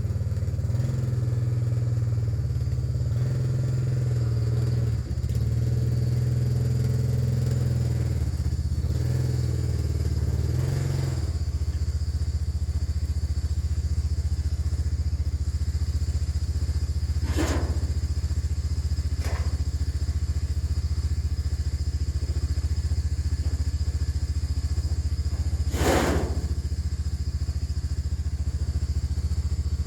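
Four-wheeler engine running steadily, its pitch shifting about eleven seconds in, with a few short clatters near the end.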